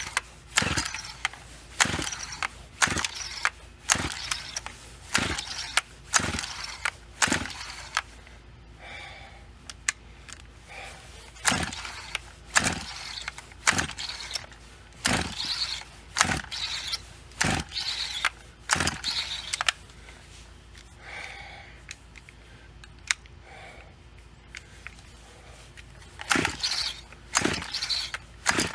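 Farmertec MS200T clone chainsaw's recoil starter pulled over and over, about once a second, in several runs with short pauses, and the engine never fires. It is a no-start that the owner puts down to a bad aftermarket carburetor.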